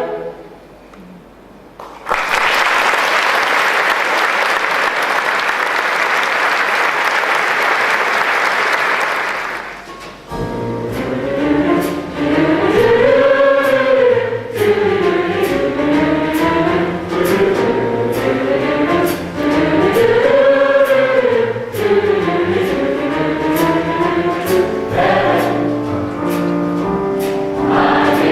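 A choir's song ends, then an audience applauds for about seven seconds. About ten seconds in, the choir starts a new song in several voice parts over a steady light beat.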